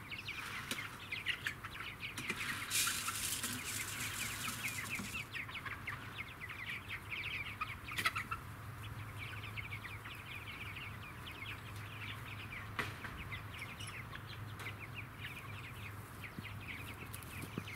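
A flock of young chickens peeping and cheeping in short, high, down-slurred calls, many overlapping, as they forage. A brief rustle comes about three seconds in.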